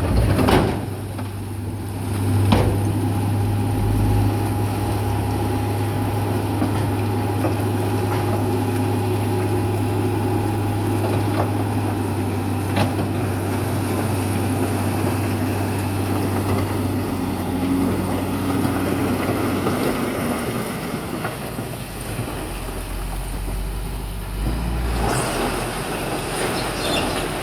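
Heavy diesel earthmoving machine running with a steady low engine hum that fades off partway through, with a few sharp knocks of metal or rock.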